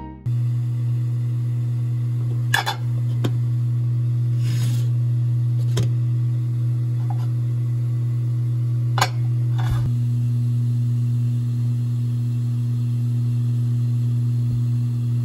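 Steady low hum with a few faint clicks and taps over it.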